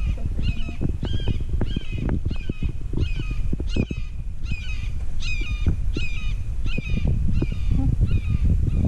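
A bird calling over and over, short calls at about two a second, over a low rumble of wind on the microphone.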